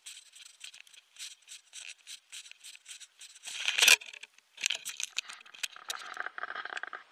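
Footsteps on a grassy dirt bank, about three steps a second, then about four seconds in a loud rushing swish as a fishing rod is cast out over a canal. Sharp ticks follow.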